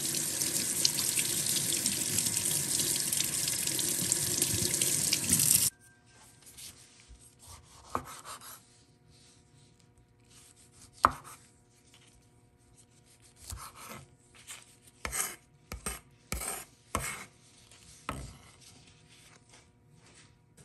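Kitchen tap running onto a tomato in a stainless steel sink, stopping abruptly about six seconds in. Then a knife cutting a tomato on a wooden cutting board: scattered knocks of the blade on the board, one sharp one about halfway through and a quick run of cuts near the end.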